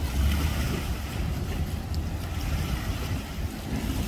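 Wind buffeting the microphone as a gusty low rumble, over small lake waves lapping and splashing against a concrete boat ramp.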